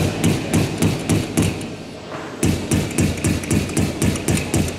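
Hand hammer striking repeatedly, about four blows a second, in two runs with a short pause near the middle.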